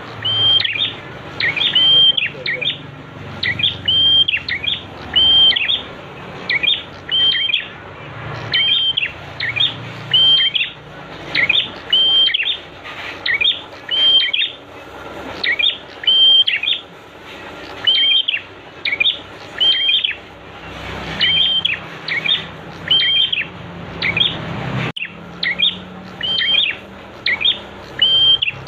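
Prinia (prenjak) song: sharp, high chirps in quick runs of two or three, repeated over and over, over a steady hiss of running water.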